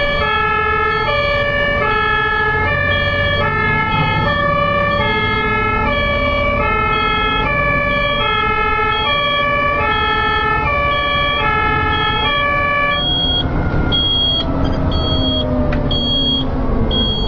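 German ambulance two-tone siren, alternating a lower and a higher tone about every two-thirds of a second, over a low rumble of traffic. About thirteen seconds in the two-tone pattern drops out, leaving a thin high tone repeating about once a second.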